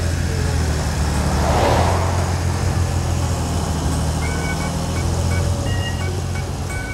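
Cartoon engine sound effect of a wheel loader driving, a steady low hum, with a whoosh about one and a half seconds in. Short high musical tones come in after about four seconds.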